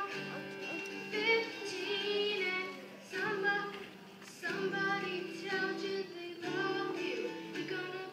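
A girl singing a pop-country song, accompanying herself on acoustic guitar, in phrases with short breaks between lines.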